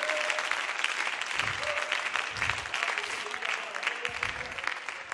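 Church congregation applauding, the clapping dying down near the end.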